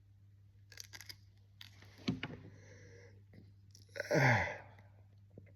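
A person eating a sour finger lime: small wet mouth clicks of chewing, a short falling grunt about two seconds in, and a louder falling groan of distaste about four seconds in.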